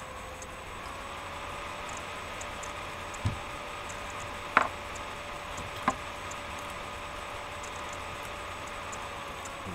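Steady background hum with three short clicks about a second and a quarter apart, the middle one loudest.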